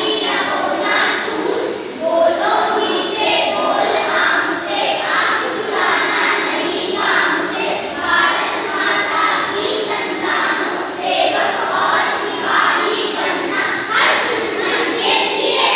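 A group of children's voices in unison, performing a verse together in a steady rhythm.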